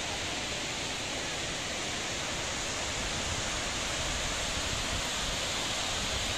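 Steavenson Falls' water rushing: a steady, even hiss of falling water.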